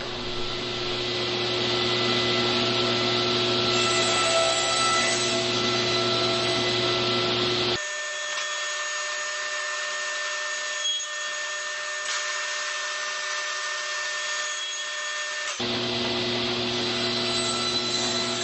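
Table saw running steadily with a constant whine, its blade tilted to 5 degrees to cut compound angled tenons in pine legs. The deep part of the sound drops out abruptly about eight seconds in and comes back about sixteen seconds in.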